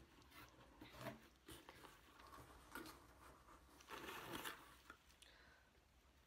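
Faint rustling and crinkling of box packaging being handled, in a few short bursts, the strongest about four seconds in as a wrapped item is lifted out.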